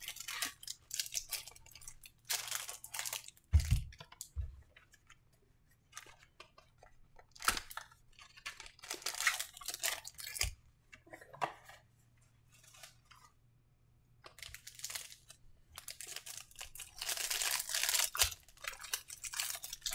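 Wrapper of a trading-card pack being torn open and crinkled by hand, in several bursts of crinkling with quiet gaps between. There are two dull thumps about four seconds in.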